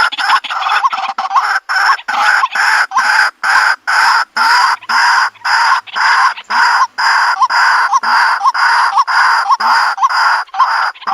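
White-breasted waterhen calling over and over in a fast, even series, about two to three calls a second.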